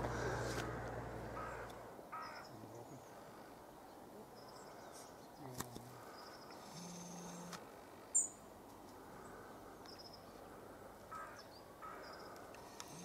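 Quiet countryside ambience: crows cawing a few times, small birds chirping high and thin, and a couple of sharp clicks. A low rumble fades out over the first two seconds.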